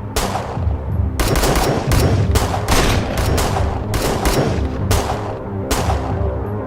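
Rapid gunfire, shot after shot in quick runs with short gaps, stopping shortly before the end, as a place is shot full of holes.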